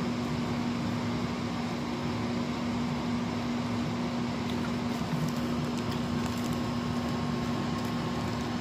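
Steady indoor background noise: an even hiss with a constant low hum, of the kind an air conditioner or fan makes.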